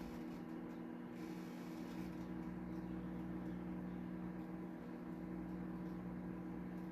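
Black & Decker microwave oven running, a steady electrical hum.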